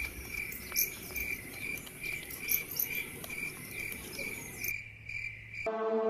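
Insects chirping in a steady rhythmic pulse about two to three times a second, over a high hiss. Background music comes in near the end.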